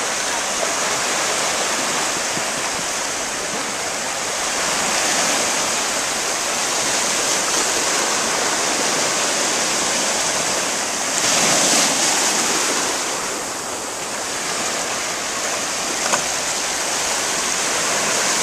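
Small waves breaking and washing up at the water's edge, a steady hiss, with one louder surge of surf about eleven seconds in.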